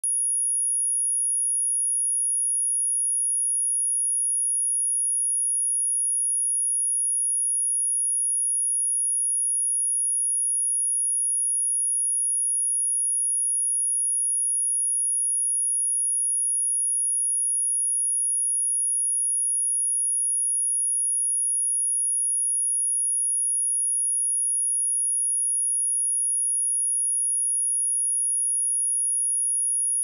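A steady, high-pitched electronic sine-wave test tone at 10,412 Hz, a single pure tone held at constant level.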